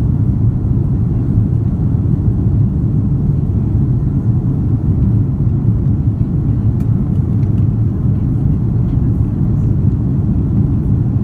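Steady low drone of a jet airliner's cabin in flight shortly after takeoff: engine and airflow noise heard from inside at a window seat.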